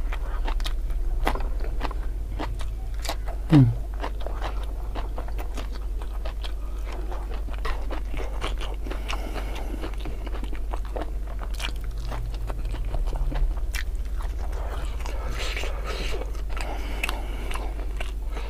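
Close-miked eating: chewing and crunching crispy fried tempeh and vegetable fritters and raw bird's eye chilies, with many small crunches. A brief louder sound falling in pitch comes about three and a half seconds in, over a steady low hum.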